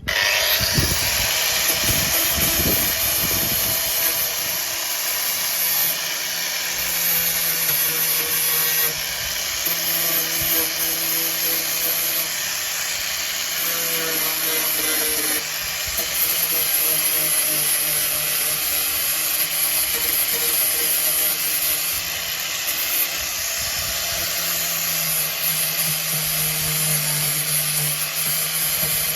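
Large angle grinder running under load, grinding at rusty body metal and filler on a 1972 VW Beetle, with a steady high whine that shifts a little as the pressure changes.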